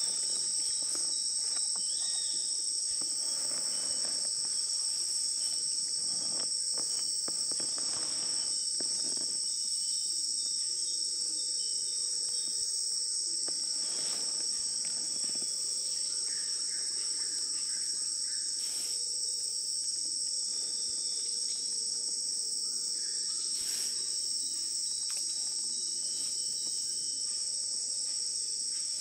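Steady, high-pitched chorus of rainforest insects drone without a break at two close pitches. A few faint, brief splashes or knocks sound underneath.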